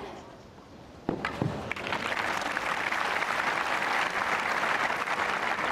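Tennis stadium crowd applauding a won point, building quickly after two sharp tennis-ball strikes about a second in.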